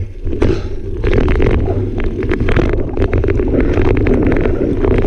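Mountain bike rolling fast over a dirt singletrack: steady wind rumble on the camera microphone, with frequent sharp clicks and rattles from the bike and tyres over the rough ground.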